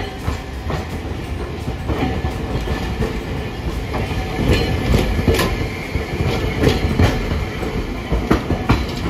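Hiroshima Electric Railway (Hiroden) streetcar no. 711 passing close by, its wheels rumbling and clacking over rail joints and points in a dozen or so irregular knocks, loudest around the middle.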